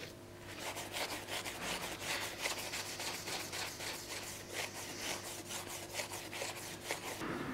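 Rubber-gloved hand rubbing back and forth over a freshly etched steel cutlass handle, about three rubbing strokes a second, stopping just before the end.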